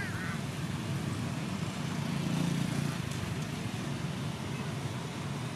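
Low, steady rumble of motor-vehicle traffic, swelling a little about two seconds in.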